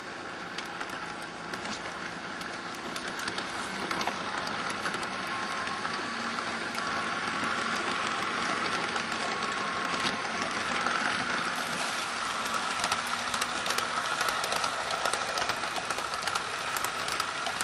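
LGB garden-scale model train running along its track, heard close up from on board: a steady whine from the motor and gears, with many small clicks from the wheels on the rails.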